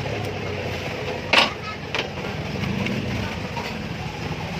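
Brother DCP-L2540DW laser printer running with a steady low hum and rattle from its laser scanner unit, with a sharp click about a second and a half in and a smaller one shortly after. The noise is the sign of a fault that the technician puts down to either the main board or the laser scanner unit itself.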